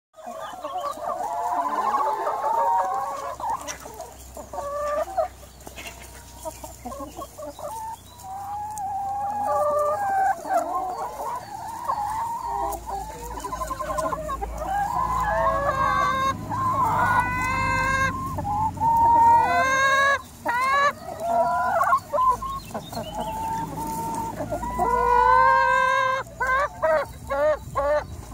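A large flock of hens clucking and calling over one another continuously. Several louder, drawn-out calls stand out past the middle and again near the end.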